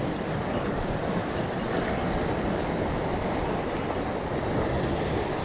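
Sea surf breaking and washing over shore rocks, a steady rushing, with some wind on the microphone.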